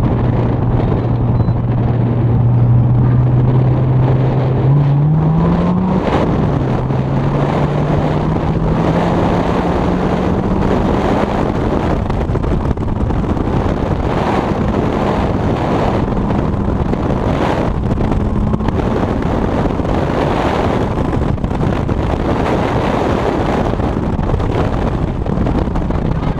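A vehicle's engine pulling along the road, with wind and road noise. The engine's pitch climbs around five seconds in, drops back about six seconds in, then rises slowly and holds steady.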